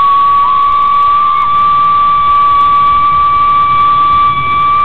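A person whistling one long, steady, high note without a break. A second, fainter note wavers just below it for about a second near the start.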